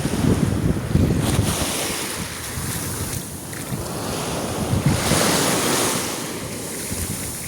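Sea waves washing onto a beach, with wind buffeting the microphone. Wind rumble is heaviest in the first second or so, and a wave washes in about five seconds in.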